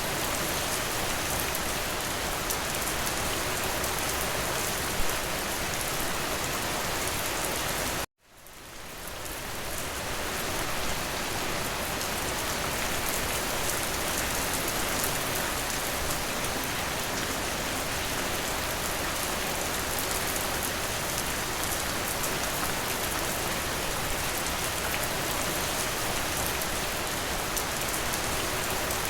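Steady rain falling, as an even hiss with a single louder drop about five seconds in. About eight seconds in the rain cuts out abruptly, then fades back in over a couple of seconds.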